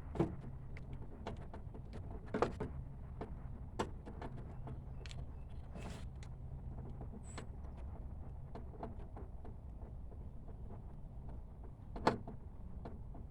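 Scattered clicks and light knocks from hand work on a car door's interior handle assembly, over a steady low hum. The loudest clicks come near the start, about two and a half seconds in, and near the end.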